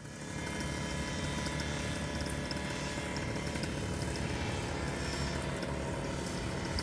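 Paramotor engine and propeller running steadily on the pilot's back, fading in over the first half second.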